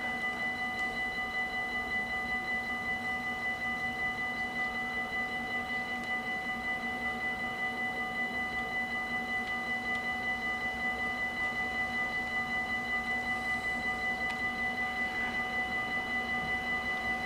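Dutch level-crossing warning bells ringing in a fast, even rhythm, their metallic tone holding steady while the half-barriers are down, the warning that a train is approaching.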